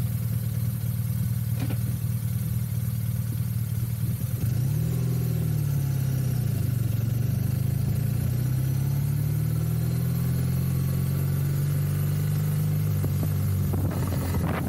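BMW motorcycle engine idling at a stop, with the revs rising and falling briefly about five seconds in. The engine then climbs in pitch as the bike pulls away and holds steady, and wind rush comes onto the microphone near the end.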